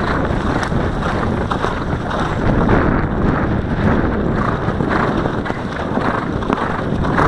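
Wind buffeting a helmet-mounted camera on a cantering horse: a steady low rumble with many short knocks from hoofbeats and jostling.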